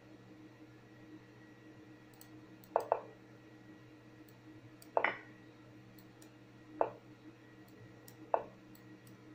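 Online chess move sounds, each a short, sharp click: a quick pair near the start, then single clicks about every one and a half to two seconds, as moves are played fast in a time scramble. A faint steady electrical hum runs underneath.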